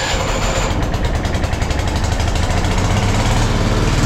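Stick welding: the arc crackles and sizzles steadily, cutting off sharply about four seconds in, over the low steady hum of the welder's engine running.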